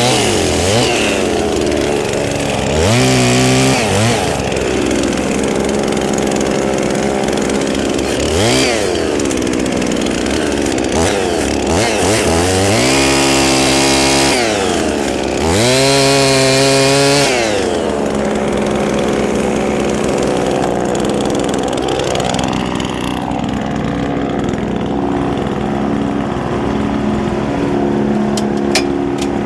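Tractor-PTO-driven Woodland Mills TF810 wood chipper running while small branches are fed in. Its hum drops in pitch and climbs back four times, the longest near the middle, as the chipper takes the load of each branch, then runs steadily.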